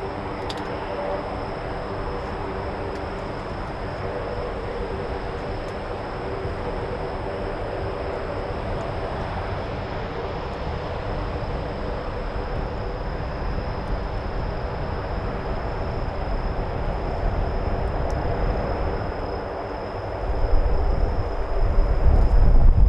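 Jet engines of a Boeing 747-8F freighter running steadily, with a steady high whine over a broad roar, growing slowly louder. Wind buffets the microphone with low rumbles near the end.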